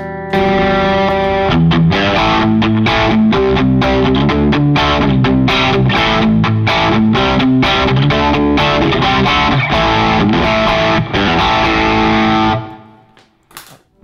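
Single-coil Stratocaster-style electric guitar played through an Officina Elettrica StompAmp Brown pedal amplifier, set for a pop tone: fast rhythmic strummed chords with effects, stopping abruptly near the end.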